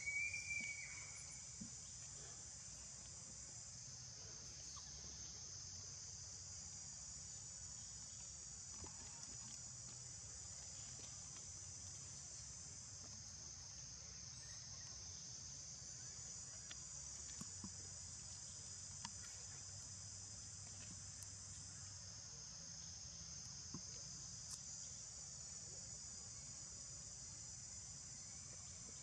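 A continuous, high-pitched chorus of insects drones steadily. A single short, high chirp comes right at the start.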